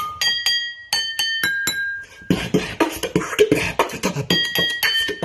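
Beatboxing: a run of sharp vocal percussion hits, some carrying clear ringing tones near the start and again near the end, with a busier stretch of mouth-made drum sounds in the middle.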